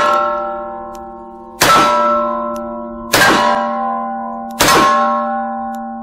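Three shots from an 1856 Beaumont-Adams 54-bore black-powder percussion revolver, about a second and a half apart, each followed at once by a steel plate target ringing with a bell-like tone that dies away slowly. The ringing from a shot just before carries on at the start.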